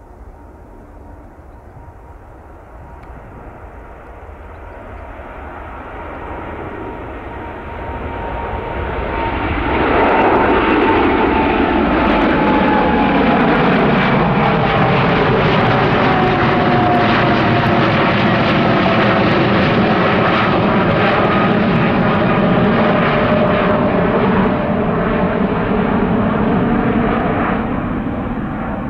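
Boeing 787-9 Dreamliner jet airliner passing close by: its engine noise builds over about ten seconds, stays loud with a whine falling slowly in pitch, then begins to fade near the end.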